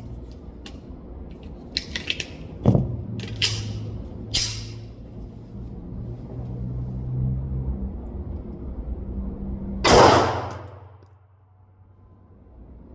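Hellcat pistol shots at a shooting range: a few sharp, quieter cracks between about two and a half and four and a half seconds in, then one loud shot about ten seconds in that rings out and fades over a second or so.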